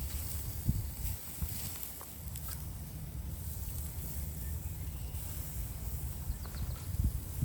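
Shashlik grilling over a barbecue: faint sizzling hiss with a few small scattered crackles, over a steady low rumble.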